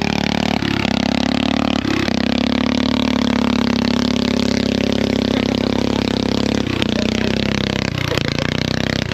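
Riding lawn mower's small engine running steadily, its pitch shifting briefly a few times.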